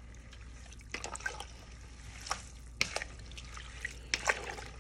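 Dark herbal liquid sloshing and dripping in a stainless steel pot as a wooden spatula stirs it, with scattered small splashes and knocks, the loudest cluster near the end.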